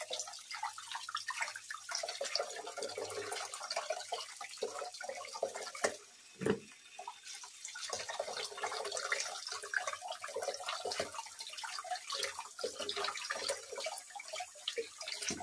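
Hands cleaning raw anchovies in water: irregular splashing, dripping and trickling from the wet handling, with a brief lull about six seconds in.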